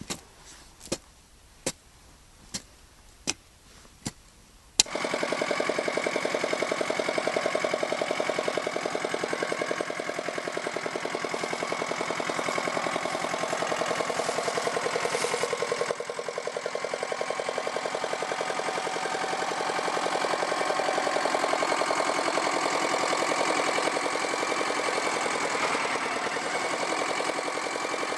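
A hand digging tool strikes into soil about six times, roughly once every 0.7 seconds. About five seconds in, a small tractor's engine cuts in abruptly and runs loud and steady while the tractor tills the ground.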